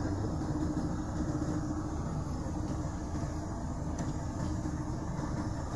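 Heavy truck running steadily, heard from inside the cab as it drives on a sandy road: an even engine and road drone with no change.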